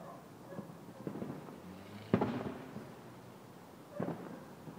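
Aerial fireworks shells bursting: a few smaller pops early, then a sharp bang about two seconds in, the loudest, trailing off, and another bang near the end.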